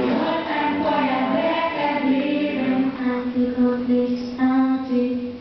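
Pop song with singing voices over the accompaniment; in the second half the voices hold long steady notes.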